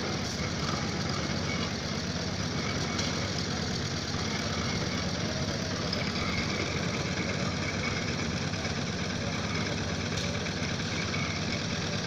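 Engine running steadily, from the machinery driving steel sheet piles into dense clay soil. It is an even, unbroken rumble with no separate hammer blows.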